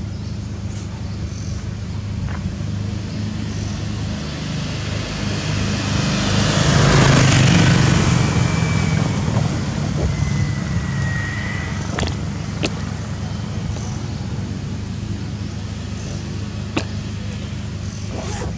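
Steady low outdoor rumble of traffic, with a vehicle passing that swells and fades about halfway through. A short high whistle follows, then a few sharp clicks.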